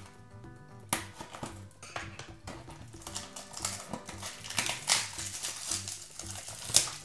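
Clear plastic wrap on a small cardboard box crinkling and crackling as it is cut and peeled off, with sharp crackles about a second in and a loudest snap near the end. Background music runs underneath.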